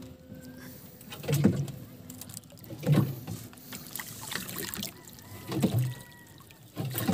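Water lapping and slapping against the hull of a small wooden boat in a regular rhythm, about once every second and a half.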